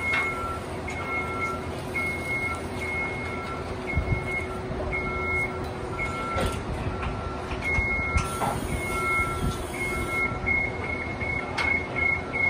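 Equipment warning alarms beeping: two alarms, one higher-pitched and one lower, each repeating about twice a second out of step with each other, over a steady machine hum. A few clanks sound in between.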